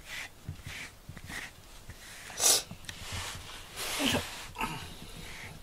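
A cat sniffing right at the microphone: short soft puffs of breath about twice a second, with a loud sharp snort about two and a half seconds in and another strong puff near four seconds.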